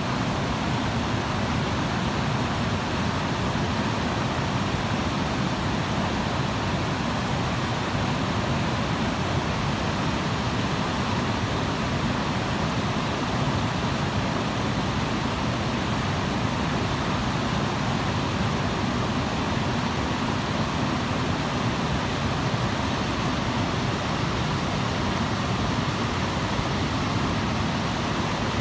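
Mountain river running fast over boulders through white-water rapids: a steady, unbroken rush of water.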